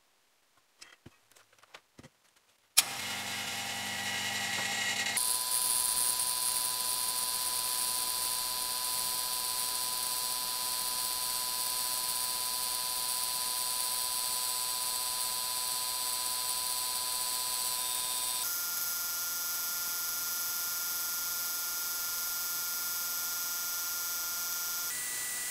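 A few light clicks, then about three seconds in a vacuum pump switches on with a sharp start and runs steadily, pulling a vacuum on a chamber to degas freshly mixed epoxy resin. Its steady whine shifts in pitch abruptly a few times.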